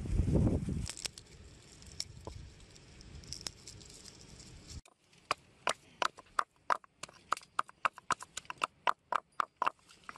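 Stone pestle knocking in a small stone mortar, pounding garlic cloves: a quick run of short, sharp knocks, about four to five a second, through the second half. Before it comes a low rumble at the very start and a few scattered clicks.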